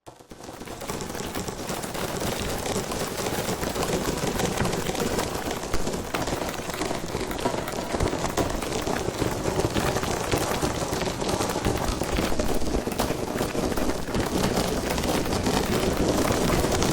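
Designed sound effect of a swarm of alien bugs crawling: dense skittering, scratching and scrambling over a gritty surface, made of countless tiny clicks. It fades in over the first second, then runs on steadily.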